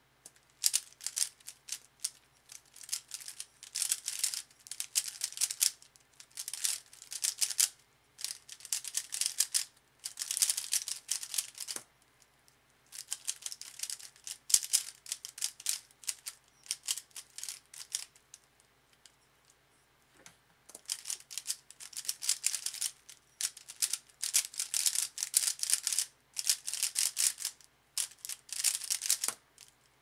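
A DaYan ZhanChi 55mm 3x3 speedcube being turned very fast, a dense rattling clatter of plastic layers in runs of a few seconds with brief pauses. Twice a single sharp tap of a laptop spacebar stops or starts the solve timer, about twelve seconds in and again near the end.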